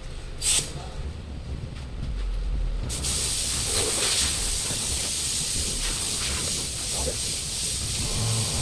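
Idling engine of a 2018 Hyundai Accent 1.4, running roughly with an idle that hunts up and down. A steady hiss comes in suddenly about three seconds in and stays.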